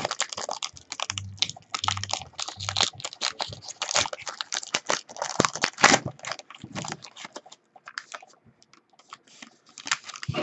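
A trading-card pack being torn open and its cards handled: rapid, irregular crinkling of the wrapper and sharp clicks and rustles of cards, thinning out in the second half.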